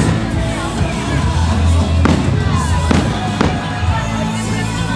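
Dance music playing over outdoor loudspeakers with a crowd, broken by a few sharp bangs about two, three and three and a half seconds in.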